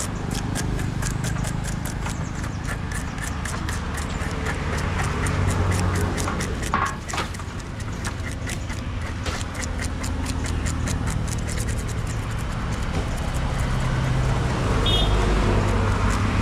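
Busy fish market noise: rapid clicking and knocking over a steady low hum, without clear speech.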